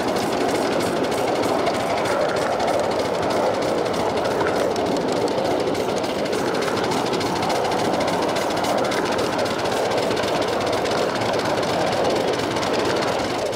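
Steady rumble of steel wheels running on rails as a 7.5-inch-gauge live steam riding train moves along the track.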